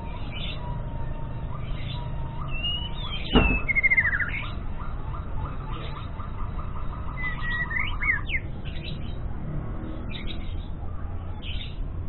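White-rumped shama (murai medan) giving short, scattered whistles and chirps, some sliding sharply up or down, with a fainter rapid rattling series of notes from about four to eight seconds in: a bird still learning its song. A sharp knock a little over three seconds in is the loudest sound.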